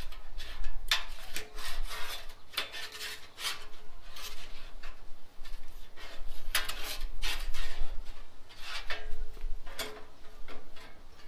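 Metal spatula scraping across the oiled steel top of a Blackstone griddle in a series of short, irregular strokes, spreading the oil over the plate, with a faint metallic ring on some strokes.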